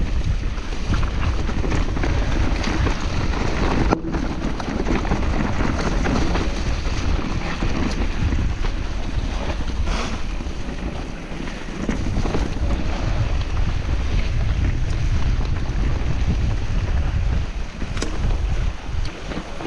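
Wind rushing and buffeting on the microphone of a camera carried on a moving mountain bike, a steady dense noise with heavy low rumble.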